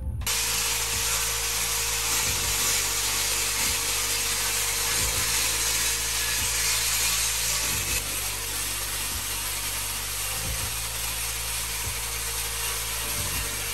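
Corded angle grinder running against the edge of a large white tile, a steady grinding hiss over a constant motor whine that starts just after the beginning and eases a little about eight seconds in.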